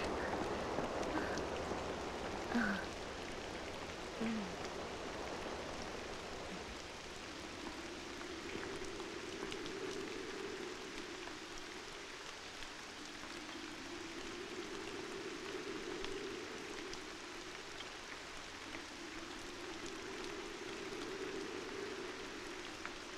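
Steady rain falling. Two brief chirps come in the first few seconds, and a soft low swell rises and fades about every six seconds.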